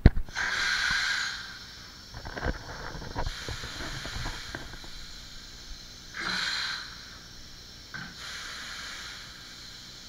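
Two short hisses of compressed air, each about a second long, with scattered metallic clicks and knocks between them as valves and fittings are worked on a stopped 1923 Crossley air-start diesel engine. No engine running yet.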